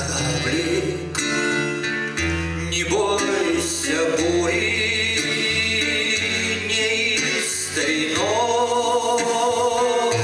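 A man singing a Russian song to his own acoustic guitar accompaniment, holding long notes with vibrato about halfway through and again near the end.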